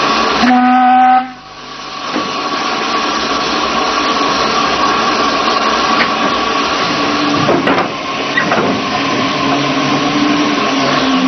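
A steam tank locomotive gives one short whistle blast of under a second near the start, then its steady hiss of steam goes on as it moves along.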